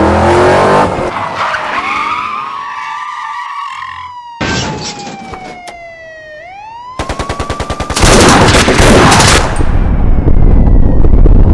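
Dubbed-in sound effects: a police siren wails up and down, then about seven seconds in a rapid burst of machine-gun fire breaks out, followed by loud, dense gunfire.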